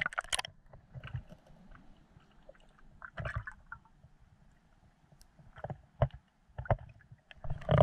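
River water heard through an action camera held just under the surface: a loud splash as it goes in, then muffled gurgling with scattered soft knocks and taps.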